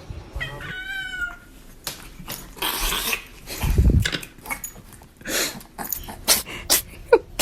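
A hairless cat gives one short meow about half a second in. A run of quick, irregular clicks and rustles follows.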